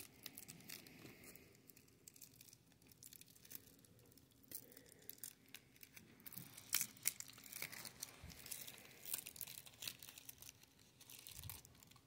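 Plastic shrink-wrap being picked at and torn off a Blu-ray case: faint, scattered crinkling and tearing crackles, busier in the second half.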